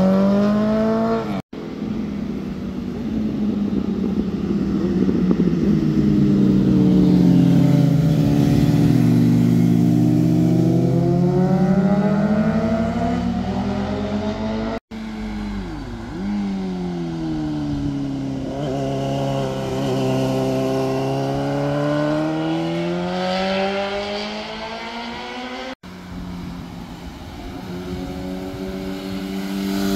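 Motorcycle engines passing through tight bends, their pitch sliding down as the riders slow into the corner and climbing again as they accelerate out. The sound cuts off abruptly three times as one pass gives way to the next.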